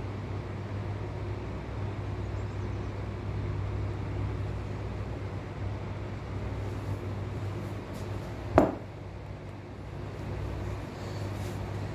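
A steady low mechanical hum, with one sharp knock about eight and a half seconds in.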